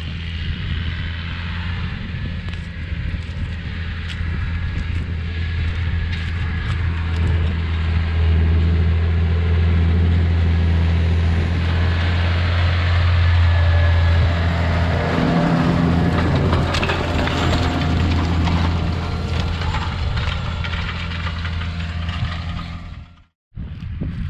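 Challenger MT635B tractor's Sisu 7.4-litre six-cylinder diesel engine running steadily as it pulls a nitrogen applicator through the field, growing louder as the tractor draws close and shifting as it goes past about midway, with scattered clicks and rattles. The sound cuts out briefly near the end.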